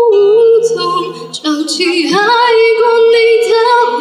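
A woman singing a live ballad into a handheld microphone, holding long notes. There is a short break about a second and a half in, then she slides up into a note that wavers with vibrato and is held.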